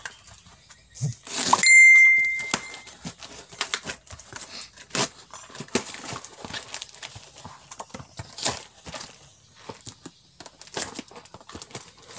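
Plastic parcel wrapping crinkling and rustling in short bursts as it is torn open and handled. About a second and a half in comes a loud rustle, followed by a brief high ringing tone that lasts about a second.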